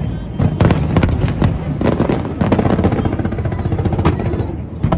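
Aerial fireworks exploding: many bangs and crackles in quick succession, overlapping, over a continuous low rumble.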